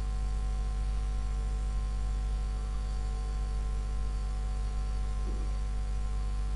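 Steady low electrical mains hum with a faint hiss underneath.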